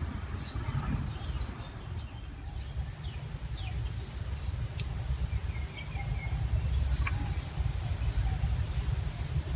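Outdoor ambience: a steady low rumble with faint bird chirps over it, and a couple of sharp clicks.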